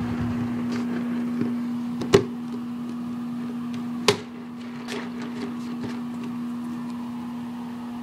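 A steady, even hum, like a small motor running, with a few sharp clicks on top, the loudest about two seconds in and another about four seconds in.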